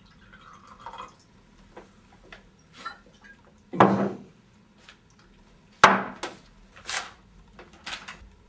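Liquid poured from a bottle into a glass for about a second, then a few sharp knocks and clinks of glass and bottle handled on a wooden table, the loudest about four seconds in.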